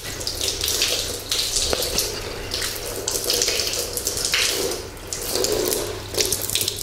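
Water running from a wall tap and splashing as a bare foot is rubbed and washed under it, the splashing rising and falling in uneven surges. Near the end, hands are rinsed under the stream.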